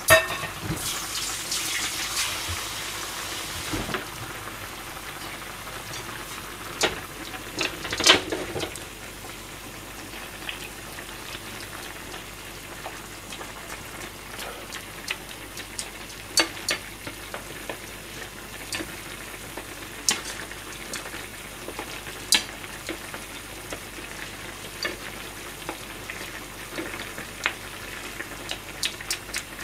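Beef nimono boiling hard in a frying pan over high heat to reduce the simmering liquid, bubbling and sizzling steadily, with a loud burst of sizzling hiss in the first few seconds. A ladle stirs the food and now and then knocks against the pan.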